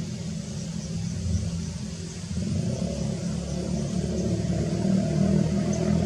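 Engine rumble from a motor vehicle running, getting louder from a little over two seconds in.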